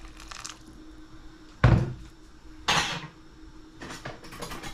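Kitchen handling knocks: one solid thud about one and a half seconds in, a brief rattling noise a second later, and a few fainter knocks near the end.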